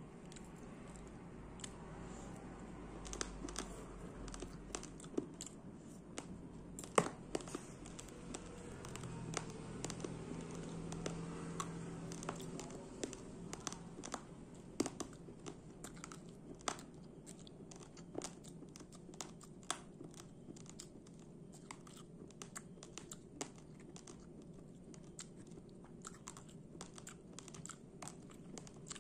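Raw rice grains crunched between the teeth: irregular sharp cracks and crunches, several a second.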